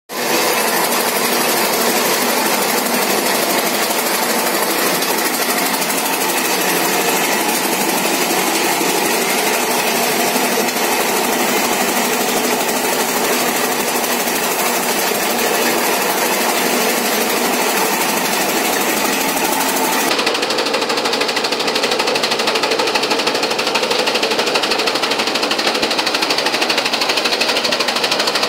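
Electric chaff cutter running steadily, its belt-driven flywheel blades chopping green fodder fed into the chute. About twenty seconds in the sound turns duller.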